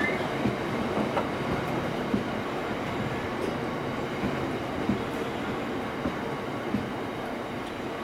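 Blue JNA bogie box wagons of a freight train rolling past, wheels clicking over the rails at irregular intervals above a steady rumble.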